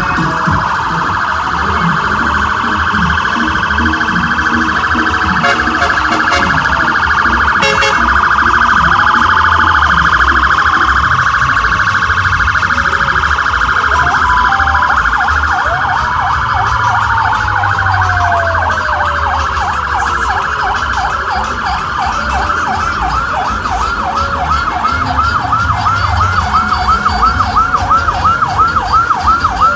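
Emergency vehicle siren sounding in a fast warble, changing about halfway through to a slower yelp of about two to three rising-and-falling sweeps a second, with one tone gliding downward in the middle.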